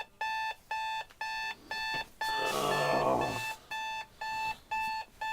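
Electronic alarm clock beeping steadily, about two short beeps a second. A louder burst of noise about two to three seconds in.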